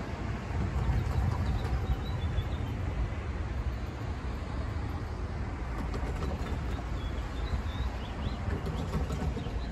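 Steady low outdoor rumble of road traffic, with a few faint bird calls now and then.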